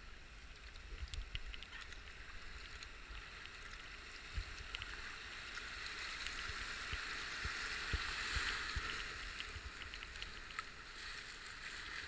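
Rushing whitewater around a kayak as it runs a rapid, with splashing paddle strokes; the rush grows louder as the kayak enters the rapid, is loudest about eight seconds in, then eases a little.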